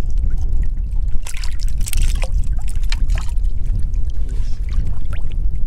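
Shallow water sloshing and splashing, with a louder burst of splashing about a second in, over a steady low rumble.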